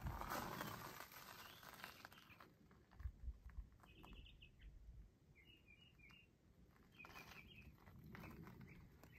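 A small bird chirping faintly in three short, quick runs about a second and a half apart, over near silence, with a few footsteps near the start.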